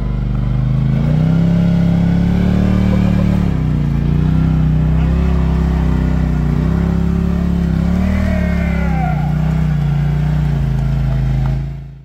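Polaris RZR side-by-side's engine revving under load while clawing up a steep slickrock ledge, its pitch rising about a second in and then dipping and climbing again several times as the throttle is worked. The sound fades out just before the end.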